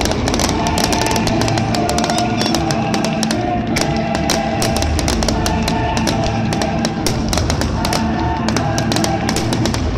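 Loud rock music with drums and guitar, overlaid by a dense, irregular run of sharp bangs and crackles from bursting fireworks.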